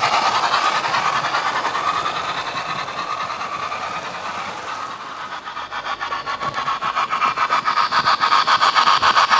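00 gauge model trains running on the layout: a steady rattle of wheels clicking rapidly over the rail joints, with the hum of the locomotive motors. It fades a little, then grows louder in the second half as a locomotive passes close by.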